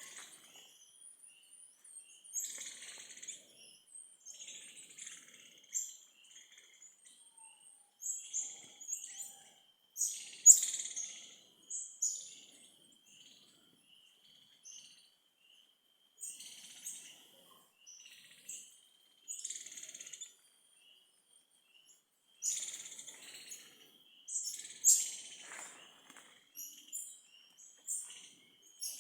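Birds chirping: short, high calls in clusters every second or two, with a few brief lulls.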